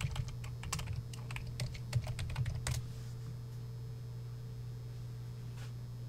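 Typing on a computer keyboard: a quick run of keystrokes that stops about three seconds in, leaving a steady low hum.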